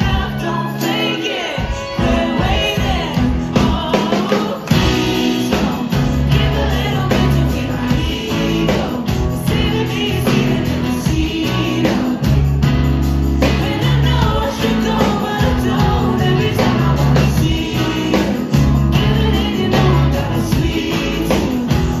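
Live indie-rock band playing a song: a woman singing lead over electric guitars, bass guitar and drums.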